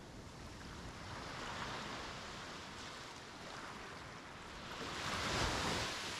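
Sea waves breaking and washing up the beach: a gentle surge about a second and a half in, then a louder wave breaking near the end.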